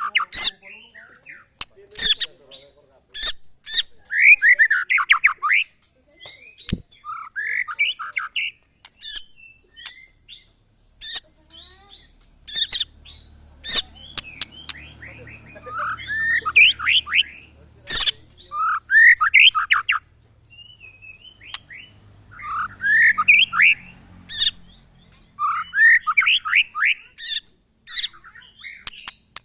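White-rumped shama (murai batu) singing loudly in repeated bursts of fast, sweeping whistled notes mixed with sharp clicking calls, with short pauses between phrases.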